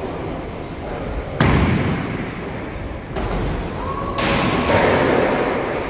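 A bowling ball drops onto the wooden lane with a heavy thud about a second and a half in and rolls with a rumble, then pins crash about four seconds in.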